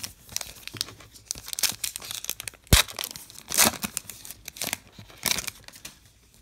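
Foil trading-card pack wrapper being torn open and crinkled by hand, a fast run of crackly rustling with a sharp click near the middle and louder bursts of crinkling after it.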